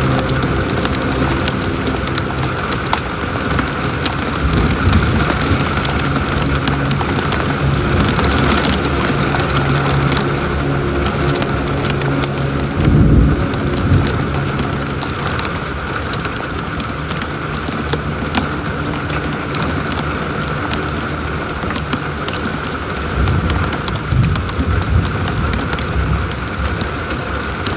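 Heavy rain pelting a car's windshield and roof, heard from inside the cabin over the car's steady low hum. A low thump about halfway through.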